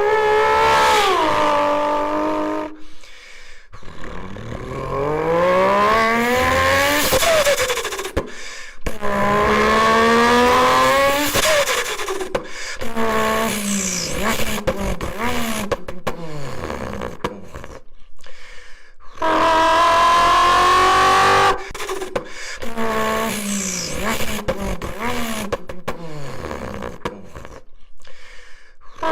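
A person imitating a supercar engine with the voice: repeated rising revs and falling, gear-change-like glides, with short breaks between runs and a long high held note a little over two-thirds of the way through.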